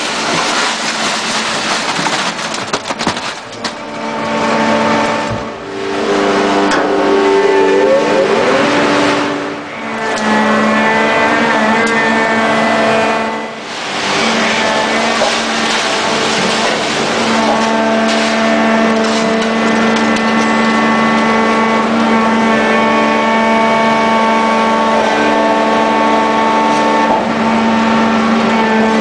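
Hydraulic power pack of a three-stage compression scrap-metal baling press running under load, a steady machine whine whose pitch shifts and glides as the rams move through the compression stages, with brief drops in level about 5, 9 and 13 seconds in. A few clanks of metal come in the first few seconds.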